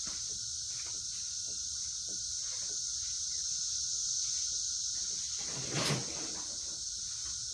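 Workshop handling noises as a cheater bar is fetched: scattered light knocks, then one louder clatter about six seconds in. A steady high-pitched drone runs behind them.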